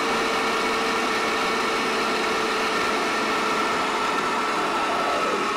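MM Sapphire 5.0 1000 W mixer grinder's motor running steadily with a constant whine as it grinds soaked urad dal into thick batter in an open jar. The whine sags briefly near the end.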